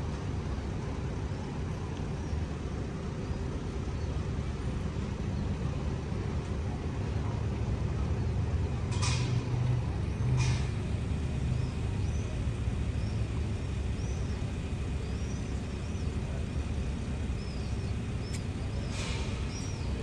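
Steady low rumble of marine engines and harbour machinery with a faint hum. There are three short hisses, about nine, ten and a half and nineteen seconds in, and faint high chirps in the last few seconds.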